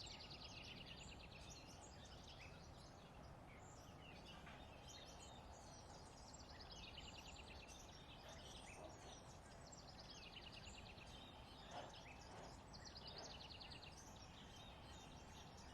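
Small songbirds singing: a fast, high trill repeated about four times, a few seconds apart, with scattered short chirps over faint steady background noise.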